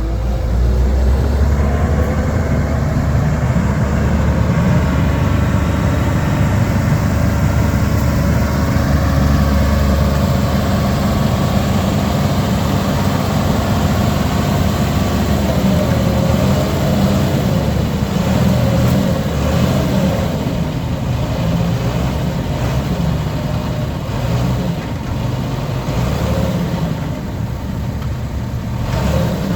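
Diesel engine of heavy earthmoving machinery running steadily under load, its pitch drifting up and down as it works.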